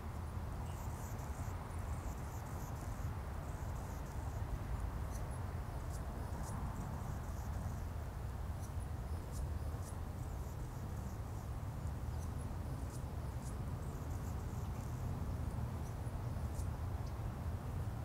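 Pond-side outdoor ambience: a steady low rumble, with faint, scattered high chirps and ticks over it.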